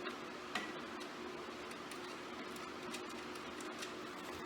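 A few faint metal clicks and ticks of a hand wrench working a small bolt, one about half a second in, over a steady low hum.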